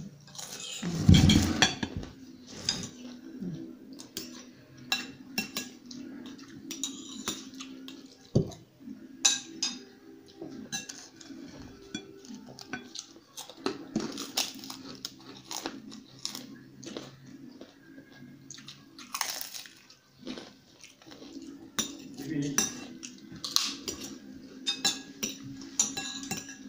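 Metal spoons clinking and scraping against ceramic plates and bowls during a meal: a stream of small sharp clicks, with a louder thump about a second in.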